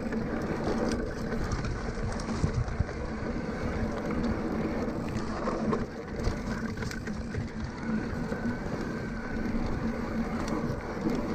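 Riding noise from an electric mountain bike: wind rushing over the action-camera microphone and tyres rolling, with a steady low hum and scattered small rattles.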